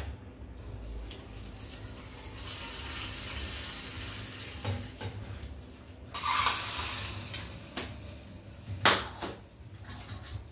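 Kitchen tap water running in two short spells, the second louder, with clinks and knocks of utensils in between.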